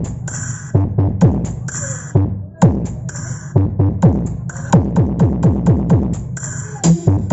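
Electronic dance music with a drum-machine beat, played loud through a sound system powered by a DV Audio 4000 power amplifier. Deep bass kicks fall in pitch several times a second, under bursts of cymbal-like hiss.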